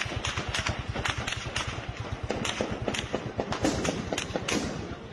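Heavy, random gunfire: a string of sharp shots, about three a second and irregularly spaced, over a low steady throb.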